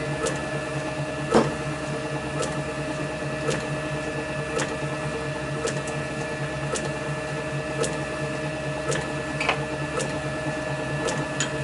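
A small machine running steadily with a hum, with a light tick about once a second.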